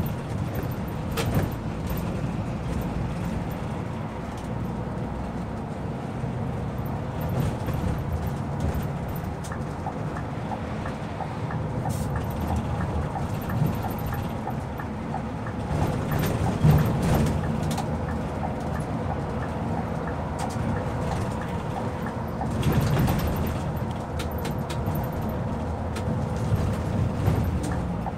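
Scania K360IB coach heard from the driver's cab while cruising: a steady low engine and road rumble, with frequent light clicks and rattles throughout. The rumble swells briefly a couple of times past the halfway point.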